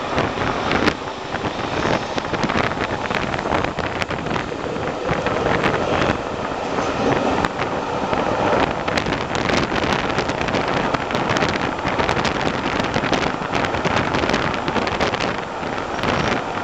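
Train hauled by LNER K4 steam locomotive 61994 running through a tunnel, heard from an open carriage window: a loud rush of wind and running noise with frequent sharp clicks.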